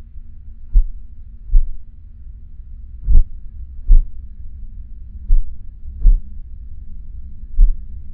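Slow heartbeat, a deep lub-dub double thump repeating about every two and a half seconds, four beats in all. A faint steady hum runs underneath.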